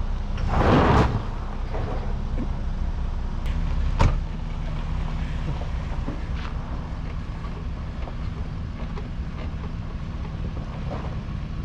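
Jeep Grand Cherokee Laredo's V6 engine running steadily as the SUV moves slowly over gravel. A loud rushing noise comes about a second in, and a single sharp knock about four seconds in.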